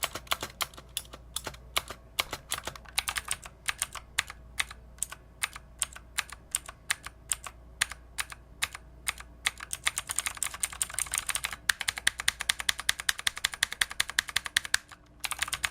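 Typing on a Drevo Tyrfing budget mechanical keyboard with Outemu switches: a fast, steady run of sharp key clicks, getting denser in the last third with two brief pauses.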